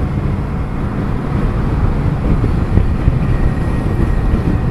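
Kawasaki Vulcan 900 Classic's 903cc V-twin running on its stock exhaust while the bike cruises, heard from the rider's seat. The steady low engine rumble is mixed with road and wind noise.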